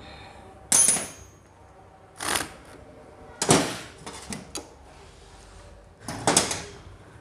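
Metal tools and engine parts being handled and set down during reassembly: four sharp metallic clanks, the first with a short ring, and a couple of lighter taps in between.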